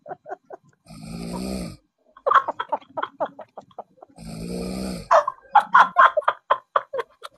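A sleeping person snoring twice, each a long rattling snore just under a second, the first about a second in and the second about four seconds in. Between and after the snores, a voice comes in quick short bursts.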